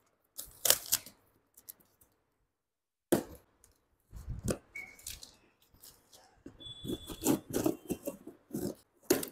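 Scissors slitting the packing tape on a cardboard shipping box, then the tape being peeled and torn off the cardboard by hand. The sounds come in irregular bursts, with a pause of about a second near two seconds in.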